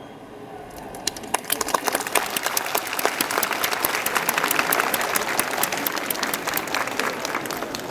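Audience applauding, a dense patter of hand claps that builds up about a second in and then holds steady.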